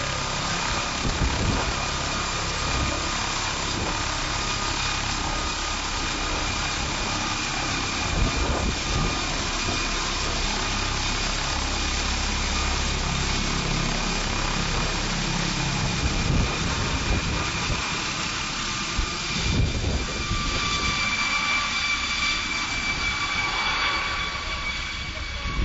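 MD Explorer twin-turbine helicopter lifting off and flying off: a steady high turbine whine over the low beat of the main rotor. The low rotor sound thins out about two-thirds of the way through while the whine carries on.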